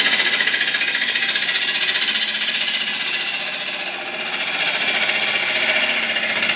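Bowl gouge taking a pull cut on the outside of a wooden bowl blank spinning on a lathe. It makes a loud, fast, even chatter as it trues up the freshly remounted blank.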